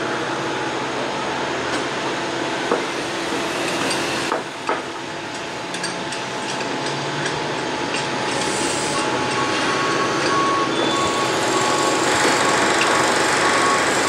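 Construction site din: machinery running continuously, with a few sharp knocks and bangs in the first half. From about nine seconds in, a high tone repeats in short dashes as the noise grows louder toward the end.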